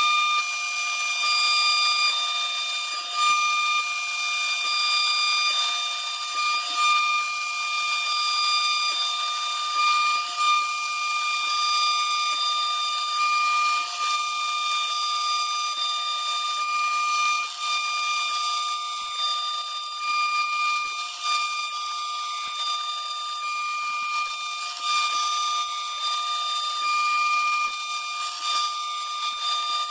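CNC router spindle at 18,000 rpm milling aluminium plate with a single-flute carbide endmill: a steady high whine over the hiss of the cut, with the loudness wavering slightly and brief peaks as the tool moves along its path.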